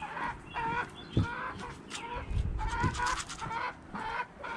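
Hens clucking, a string of short calls. Two low thumps, about a second in and near three seconds, footsteps on a wooden deck, the first the loudest sound.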